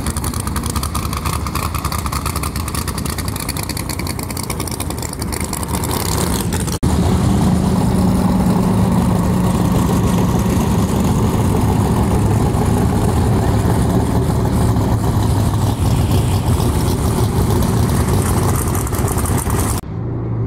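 Loud open-exhaust drag-race engines running at low speed as the cars roll past. A rough, pulsing engine gives way about 7 s in to a steadier, deeper engine note, and the sound changes again abruptly near the end.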